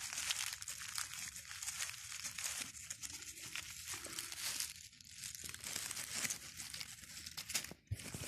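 Dry fallen leaves rustling and crackling as they are disturbed by hand, a steady run of small crackles. Near the end it drops out briefly, then there is a single thump.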